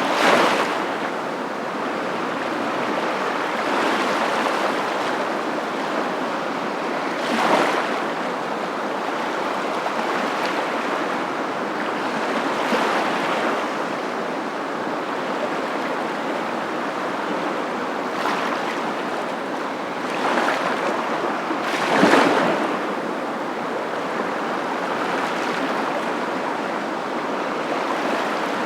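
Surf: a steady wash of water noise with waves breaking every few seconds. One break about three quarters of the way through is louder than the rest.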